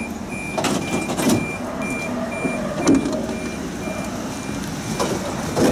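Door warning signal of a Siemens Combino tram: a short high beep repeating about two to three times a second over the tram's steady hum. The beeps stop near the end, and a few sharp knocks come through, the loudest just before the end.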